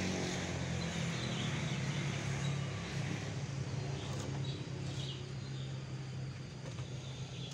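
Steady low hum of an unseen engine running at a constant idle, with a few faint clicks about four and five seconds in as the steel culvert mould is handled.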